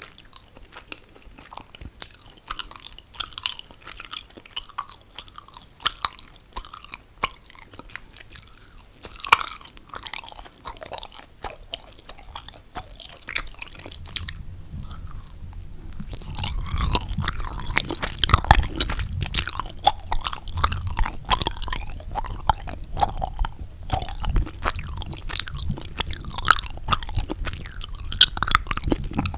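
Close-miked chewing of mochi: sticky, chewy mouth sounds with irregular small clicks and smacks, growing louder and fuller about halfway through.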